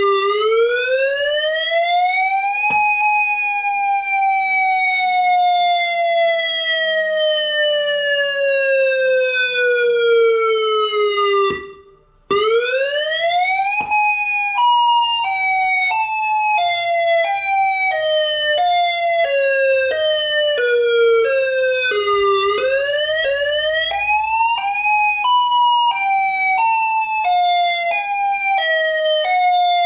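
Ion Pathfinder electronic warning siren played at full volume. It gives one slow wail (a quick rise in pitch, then a long slow fall), which is the attack signal. It cuts out for about half a second, then switches to alternate wail: a warbling two-tone that steps back and forth about twice a second while the whole pitch slowly falls, rises and falls again.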